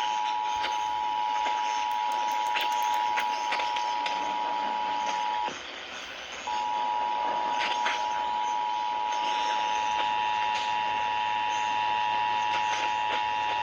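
Emergency Alert System attention signal: the steady two-tone alert tone heard over a radio with a hissy background, starting an EAS test. The tone drops out for about a second partway through, then resumes, and fainter higher tones join in near the end.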